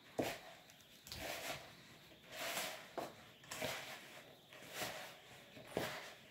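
Hands mixing and kneading a crumbly butter-and-flour dough in a plastic bowl: a soft rubbing, squishing swish repeated irregularly, roughly every half second.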